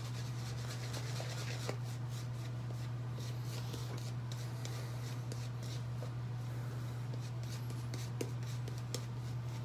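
Shaving brush working lather on the face and beard stubble: soft, irregular scratchy brushing strokes over a steady low hum.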